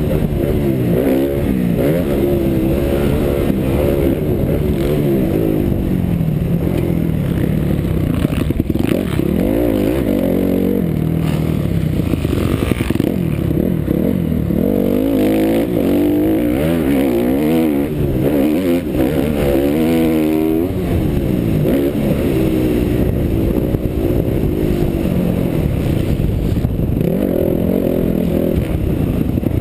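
Motocross bike engine under hard riding, revving up and dropping back again and again as the rider accelerates and lets off, heard from the rider's helmet.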